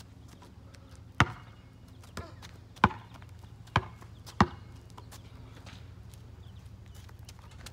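Basketball bouncing on an asphalt street: about five sharp, separate bounces, roughly a second apart, in the first half.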